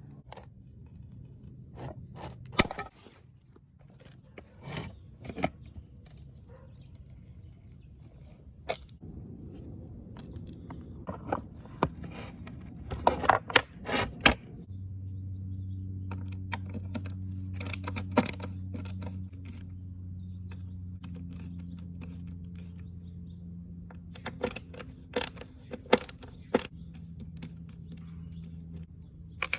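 Scattered clinks, taps and scrapes of small hard parts being handled, coming in short clusters. About halfway through, a steady low hum starts and runs on under them.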